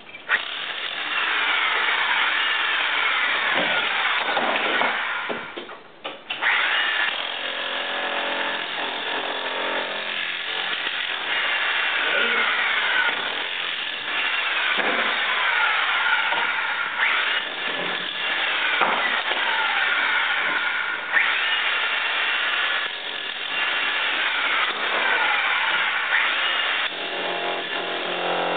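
Handheld electric jackhammer chipping brick and mortar off a fireplace facade, running in long stretches with one short stop about six seconds in. A whine in it falls in pitch again and again.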